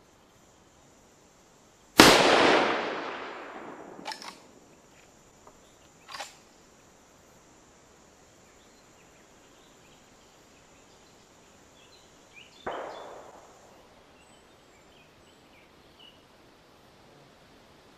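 A single shot from a Winchester Model 1895 lever-action rifle in 7.62x54R, loud and echoing for about two seconds, followed by sharp metallic clacks of the lever being worked. A second, much fainter bang with a short echo comes later.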